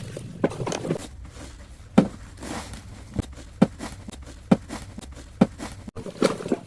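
Footsteps, a few distinct steps about a second apart.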